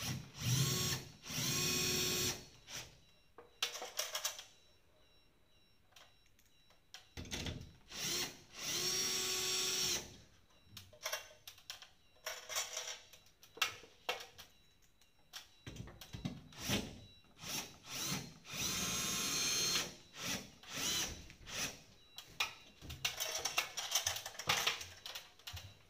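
Cordless battery drill driving screws through a metal air-conditioner mounting plate into a partition wall. The motor whines steadily in several separate bursts, the longest two to three seconds, with clicks and knocks between them.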